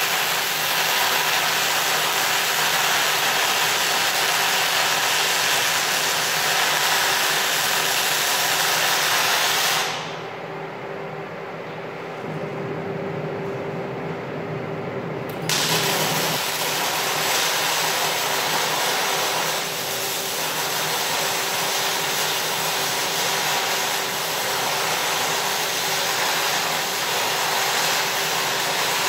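MIG welding arc crackling and hissing steadily as a bead is run on a steel beam. About ten seconds in the arc stops for about five seconds, leaving a quieter low steady hum, then it strikes again and runs on.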